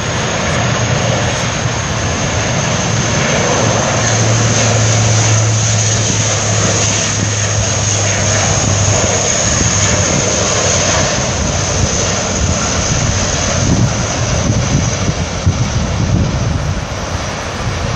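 Four turboprop engines of a Lockheed C-130 Hercules, loud and steady as it flies low past on its landing approach. A low steady hum stands out for a few seconds in the first half.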